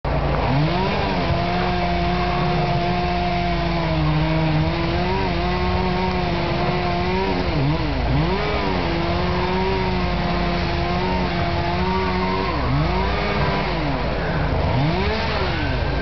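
Chainsaw running hard at high revs, held steady for several seconds at a time, as when cutting through a branch; the pitch drops and swoops back up when the throttle is eased, about halfway through and twice near the end.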